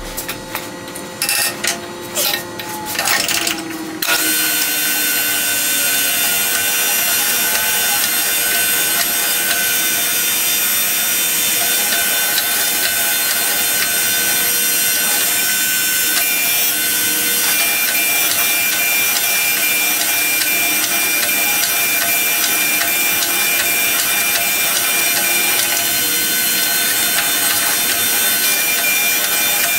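Reid surface grinder running, its grinding wheel spinning with a steady mechanical whir and a constant high whine. The sound is choppy and uneven for the first few seconds, then settles into a steady run.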